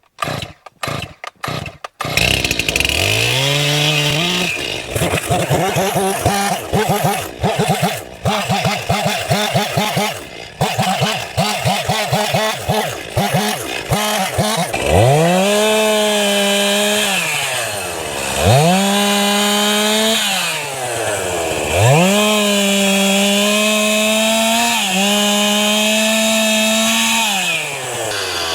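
Two-stroke chainsaw catching after a few clicks, idling unevenly, then revved to full throttle and held there for a few seconds at a time, dropping back toward idle in between, as it cuts firewood.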